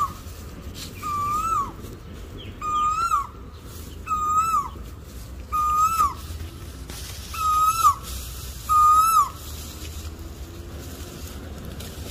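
A bird calling over and over, about once every second and a half: each call is a level whistled note that drops away at its end. The calls stop about nine seconds in, leaving a low steady rumble.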